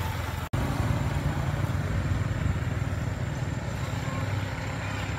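Motorbike engine running steadily at low revs, a continuous low rumble; the sound drops out for an instant about half a second in.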